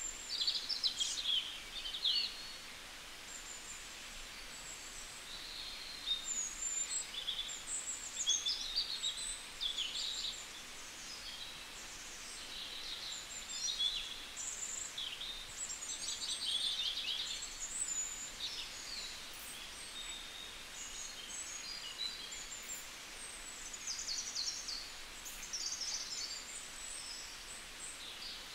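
Several small birds chirping and trilling in quick, scattered calls over a faint steady hiss.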